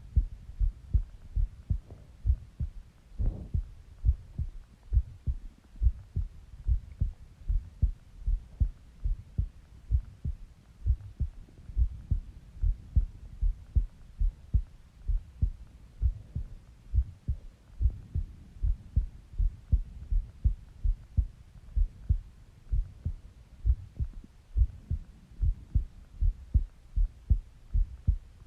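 A person's heartbeat heard close up through the chest: steady lub-dub pairs of low thumps, a little over one beat a second. A brief, higher sound breaks in about three seconds in.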